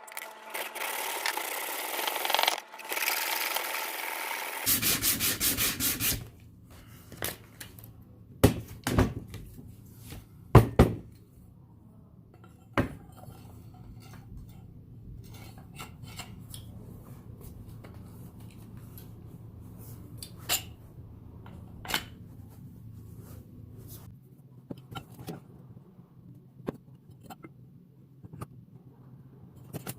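Dense abrasive rubbing for about four and a half seconds, like sanding or filing, as the farm fork is worked on by hand. Then a short run of quick strokes, followed by scattered sharp knocks and clicks over a low steady hum.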